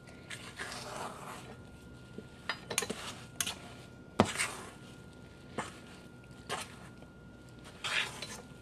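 Stainless steel mixing bowl knocking and clinking on a wooden counter while a thick batter is mixed and squeezed by hand, with irregular sharp knocks every second or so, the loudest a little past halfway.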